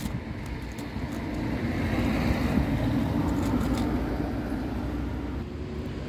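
A motor vehicle passing along the road, its noise swelling to a peak about two seconds in and then slowly fading.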